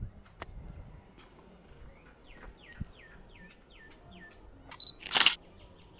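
A mirrorless camera's shutter fires about five seconds in, the loudest sound, with a short high beep just before it. Earlier a bird calls a quick run of about six short falling notes.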